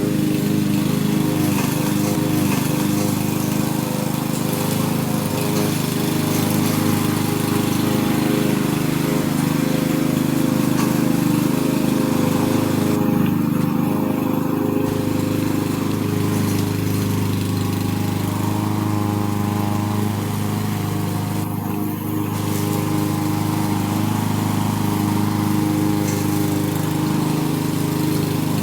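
Power lawn mower running steadily while cutting grass, its engine hum holding an even pitch throughout.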